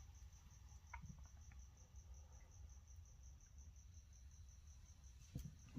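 Faint cricket chirping in a steady, even rhythm of about five high-pitched pulses a second, with a couple of soft clicks.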